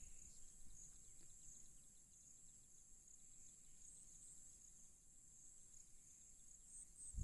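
Near silence: room tone with a faint, steady high-pitched hiss.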